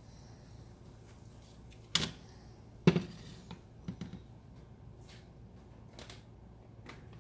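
Kitchen handling noises: a sharp click about two seconds in, then a clunk as a frying pan of scrambled eggs is set down on a glass-top stove, followed by a few lighter knocks.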